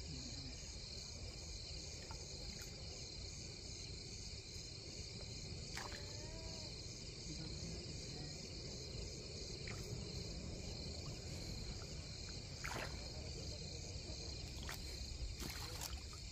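Crickets chirping in a steady, pulsing high-pitched night chorus, over a low rumble, with a few faint clicks.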